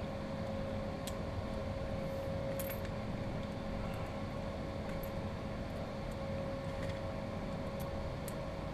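Steady background hum with one constant mid-pitched tone over a low rumble, broken only by a few faint, scattered clicks.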